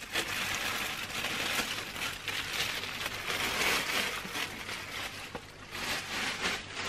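Clear plastic wrapping crinkling and rustling as it is pulled off a mini metal lathe and bunched up by hand. The sound thins out after about five seconds.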